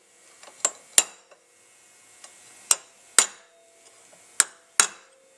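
Hammer striking a steel punch to stake the fuel pump's body casting, dimpling it in spots to lock the oil seal retainer in place. Six sharp taps in three pairs, each pair about half a second apart.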